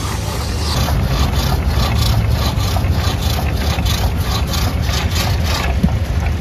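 Engine-driven drag saw cutting through a log, its long blade going back and forth about three to four strokes a second over a steady engine drone. Near the end the strokes stop and the cut-off round drops with a thunk.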